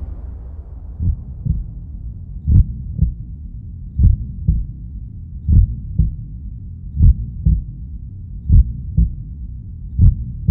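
Heartbeat sound effect: paired low thumps, lub-dub, repeating evenly about every one and a half seconds over a low hum.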